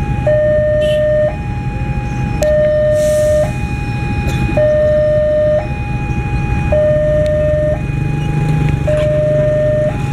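Railway level-crossing warning alarm sounding its two-tone signal, alternating between a lower and a higher tone roughly once a second, which warns that the crossing is closed for an approaching train. Underneath is a steady low engine rumble.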